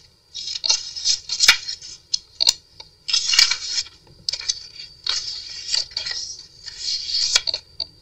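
Paper pages of a handmade junk journal rustling and flapping as they are turned and handled by hand, in a series of short bursts with a few sharp clicks.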